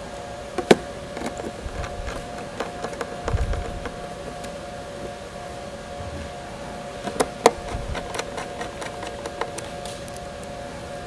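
Small sharp clicks and taps of a thin metal laptop keyboard plate and its screws being handled and fitted, with the loudest click about a second in, two more close together around seven seconds in, and a dull low thud near the middle. A steady two-note hum runs underneath.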